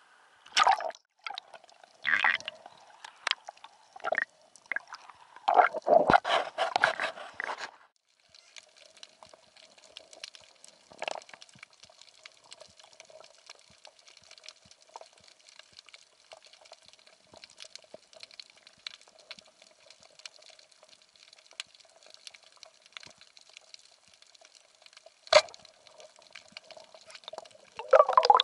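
Water splashing and bubbling in loud irregular bursts for the first several seconds. After a sudden cut comes a faint steady underwater-sounding hum full of scattered small clicks and crackles, broken by one sharp click near the end before the splashing starts again.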